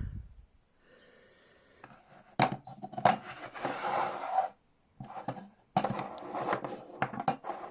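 A Higonokami friction-folder pocket knife being handled: rubbing and scraping, with a sharp click about two and a half seconds in and several smaller clicks near the end.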